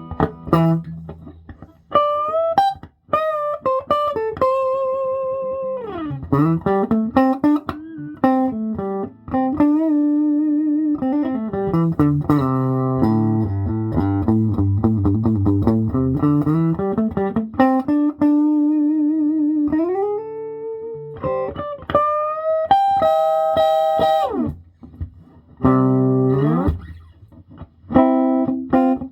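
Electric guitar played through a 1967 Ampeg Portaflex SB12 tube amplifier's instrument input at about half volume: sustained picked notes with long sliding glides up and down the neck and some wavering vibrato. The amp sounds clean and healthy with its new tube.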